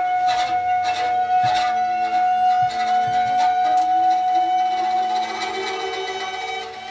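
Improvised experimental music on acoustic instruments: one high note held steadily throughout, with softer sustained notes below it and scratchy, rasping strokes in the first half. The playing grows quieter near the end.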